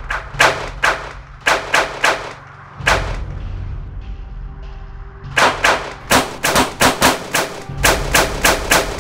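Pistol gunfire in a running exchange: sharp shots several a second, a break of about two seconds in the middle, then a faster, longer volley.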